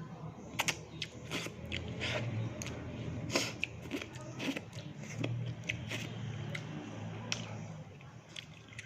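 Close-up chewing and biting of crispy fried fish, with irregular crunches and wet mouth clicks, over a low steady hum.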